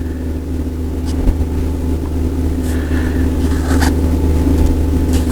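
Steady low mechanical hum with a constant pitch, with a few faint rustles and clicks of hands at work.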